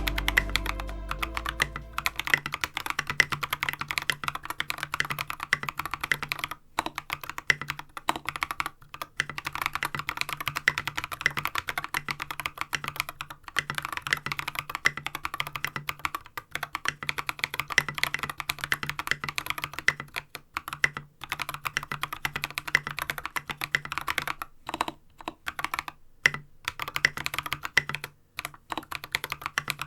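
Typing on a Hansung TFG Art mechanical keyboard with Holy Panda tactile switches lubed with Krytox 205g0 and tall SA-profile ABS keycaps (SA Oblivion). It is a dense, fast stream of keystroke clacks, broken by a few brief pauses.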